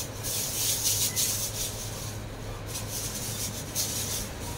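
Thin clear plastic bag crinkling and rustling in uneven bursts as hands rummage inside it to pull out chicken legs.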